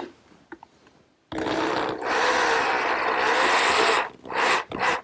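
Electric drill driving a 2½-inch self-drilling wood screw into the end of a pine board. The drill runs steadily for about two and a half seconds, getting louder partway through as the screw bites in, then gives two short bursts as the head is driven home.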